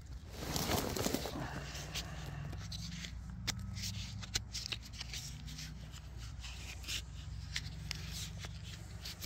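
Flat plastic drip tape handled close up: rustling and crinkling with many short sharp clicks as hands fold and work the end of the line, loudest in a rustle about a second in.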